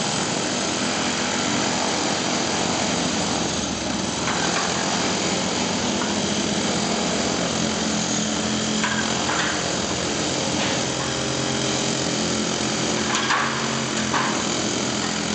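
Building works noise: machinery running without a break, with a constant hum, and a few short knocks scattered through.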